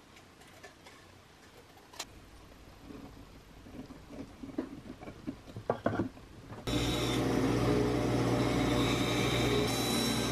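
Light pencil scratching as a pattern is traced onto a basswood block, then about two-thirds through a band saw cuts in abruptly, running with a steady hum and whine as its blade cuts the block.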